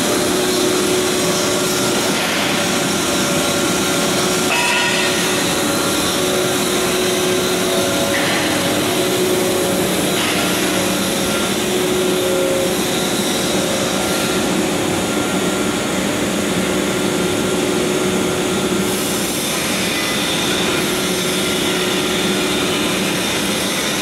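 PE pipe extrusion line running: a steady, loud machine hum and hiss with a few faint steady tones over it.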